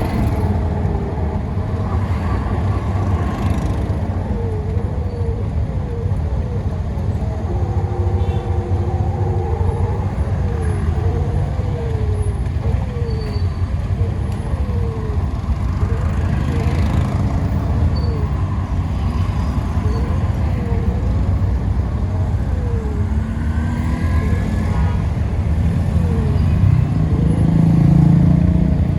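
Steady low rumble of road vehicles and traffic, with faint wavering tones riding over it.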